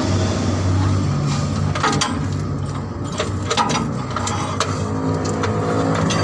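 An engine running steadily at a low, even pitch, with several sharp metallic clanks of tool work over it.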